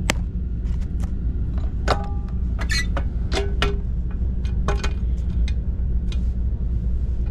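Steady low rumble of a high-speed train's passenger cabin on the move, with scattered small clicks and clinks.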